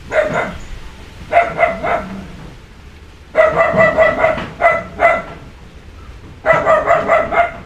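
A dog barking in several quick runs of short, repeated barks, with pauses between the runs.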